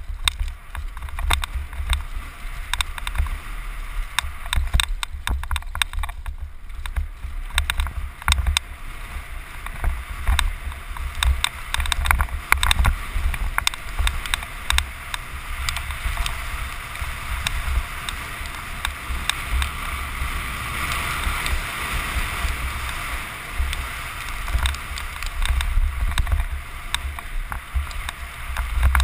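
Downhill mountain bike at speed: wind buffeting the microphone and knobby tyres running over dirt and roots, with frequent clicks and rattles from the bike's chain and frame over the bumps. The rush turns into a steadier hiss in the middle of the run, where the course crosses open ground.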